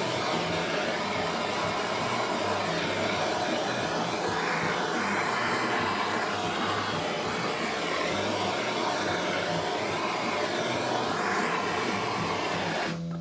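Heat gun blowing steadily, warming the motorcycle transmission case so the chilled parts can be fitted. It cuts off near the end.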